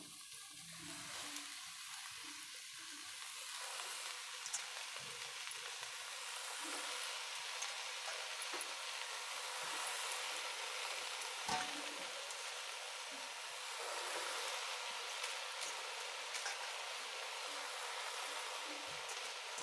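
Freshly added red amaranth (kosala saag) leaves and half-cooked potato cubes sizzling in a steel kadai over the flame, a steady frying hiss that slowly swells, with a few faint clicks.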